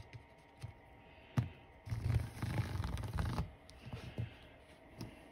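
Plastic parallel track gauge sliding along model railroad track rails: a click, then a scraping rub lasting about a second and a half, followed by a few light taps.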